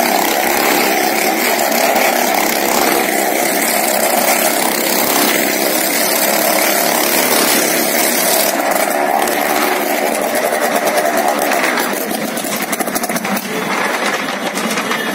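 Motorcycle engine running hard as it rides round the vertical wooden wall of a well-of-death drum, a loud unbroken engine sound echoing in the enclosure. About twelve seconds in, the sound becomes choppier and less even.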